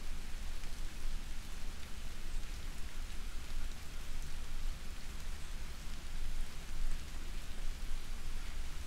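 Soft rain falling steadily, an even hiss of drops with no breaks.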